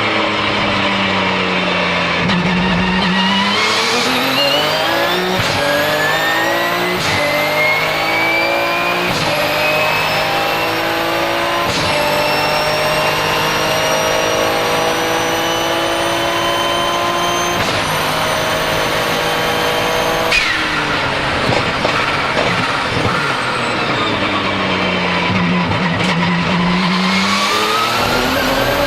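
Twin-turbo 3.9-litre flat-six of a Porsche 997 GT2 RSR, heard from inside the car, pulling hard through a run of quick upshifts of the sequential gearbox, with a high turbo whistle rising over the engine and dipping at each shift. About twenty seconds in the throttle snaps shut with the blow-off valve venting, and the engine winds down through downshifts before picking up again near the end.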